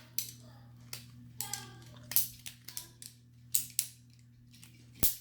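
Lego Technic pieces clicking and clattering as they are handled and pressed together: about half a dozen sharp plastic clicks, spaced unevenly a second or so apart.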